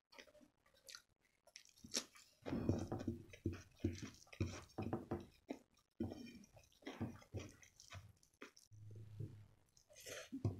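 Close, wet chewing of a mouthful of rice mixed with palak paneer, in irregular smacking clusters, with the squish of fingers gathering the rice on the plate.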